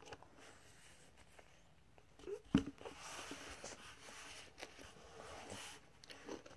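Faint handling sounds of a small plastic spoon and the plastic cup of a Kinder Joy egg as chocolate cream is eaten from it: a single sharp knock about two and a half seconds in, then soft scraping and clicking.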